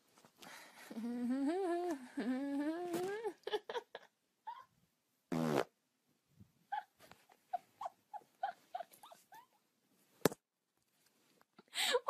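Long, wavering, pitched fart lasting about two and a half seconds, then a short, deeper one a couple of seconds later. A run of short, quieter high blips and a sharp click follow.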